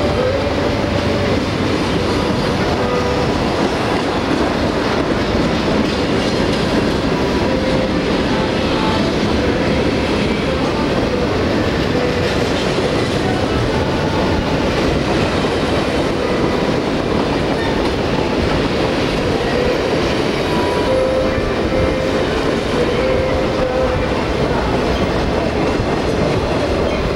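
Freight train cars rolling past close by: a steady loud clatter of steel wheels on rail, with short high-pitched wheel squeals coming and going.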